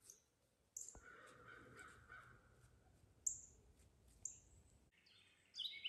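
Faint wild bird calls in quiet woodland: a few brief high chirps spread through, a longer lower call about a second in, and a run of quick stepped notes starting near the end.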